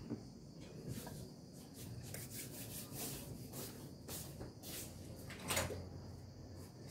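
Faint, scattered soft knocks and brief rustling scrapes of someone handling things nearby, with one louder bump or scrape about five and a half seconds in.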